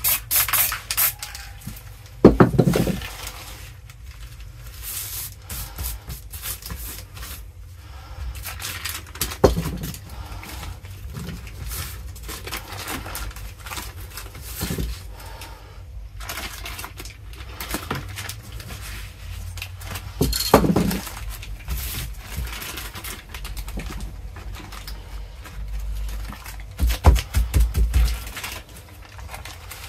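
Short spray-can hisses in the first second, then crumpled magazine paper crinkling and rustling as it is pressed and dabbed onto the painted board, with a few knocks against the board.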